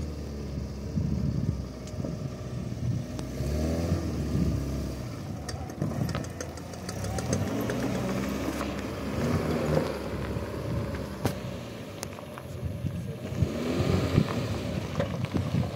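A car's engine running while driving, its pitch rising and falling several times as it speeds up and slows down, with a run of light clicks in the middle.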